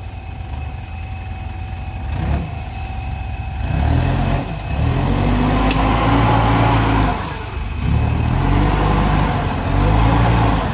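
Mitsubishi Triton pickup's engine revving hard in two long surges, pitch climbing then easing, as it pulls through deep mud on an off-road trail.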